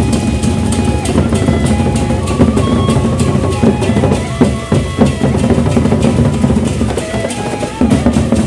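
Sasak gendang beleq ensemble playing: large barrel drums beaten in a dense, fast rhythm with cymbals, and a melody of held notes moving above the drums.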